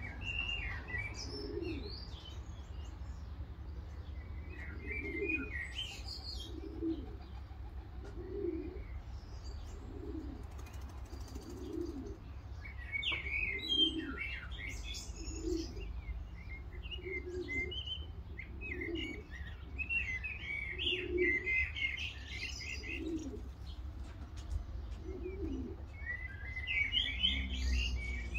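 Pigeons cooing in a steady series of low notes about once a second, with small birds chirping higher over them and a low wind rumble underneath.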